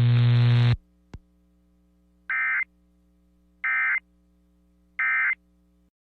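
A steady electronic buzzing hum that cuts off just under a second in, then a click, then three short identical bursts of Emergency Alert System data-header screech about a second and a third apart: the End of Message code that closes an EAS alert.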